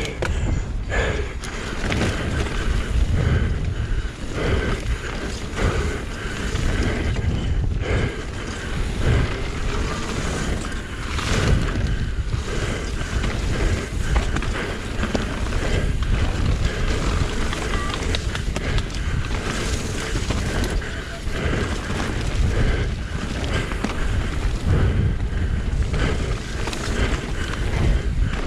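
Mountain bike descending an enduro stage at speed, heard through an action camera: a continuous rumble of tyres over dirt and rocks, with wind noise on the microphone and frequent irregular knocks and rattles from the bike over rough ground.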